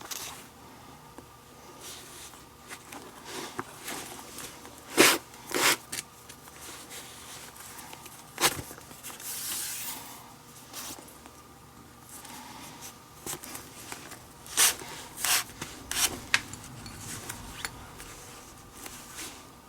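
Leather lace being drawn through the lace holes of a baseball glove, rubbing and zipping against the leather in irregular short pulls, a few of them sharp and loud.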